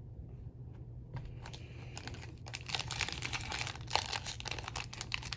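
Foil wrapper of a trading-card pack crinkling and tearing as it is worked open. It starts about a second in and gets busier and louder from about halfway, with a steady low hum underneath.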